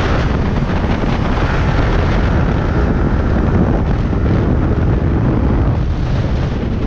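Heavy, steady wind buffeting on the microphone of a rider's camera on a Yamaha R15 sport bike at about 90 km/h, with the bike's running and road noise underneath.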